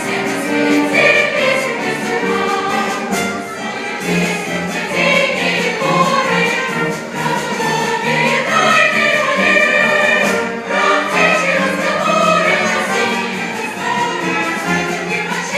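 Music: a choir singing over instrumental accompaniment.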